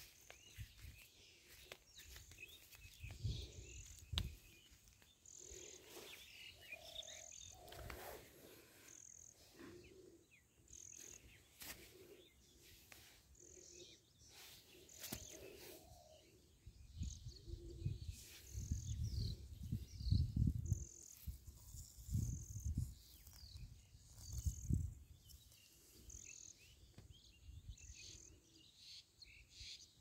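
Outdoor field ambience: short high chirps repeating every second or two. Several bursts of low rumbling noise come in the second half and are the loudest sounds.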